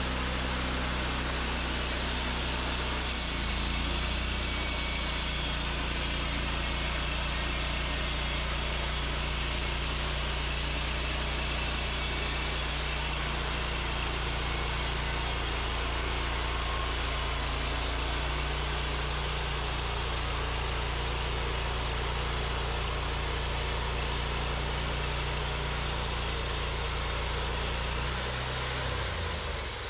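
Wood-Mizer LT40 portable band sawmill running steadily under load as its band blade saws a board off a white pine log. The engine note shifts about three seconds in and again just before the end.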